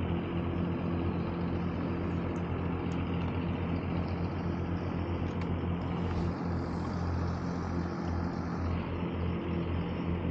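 A steady engine drone holding one pitch, with a few faint ticks over it.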